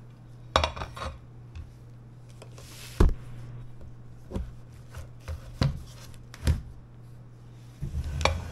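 A large plate being handled over a plastic cutting board and table: scattered light knocks and taps, the sharpest about three seconds in and a few more near the end, over a steady low hum.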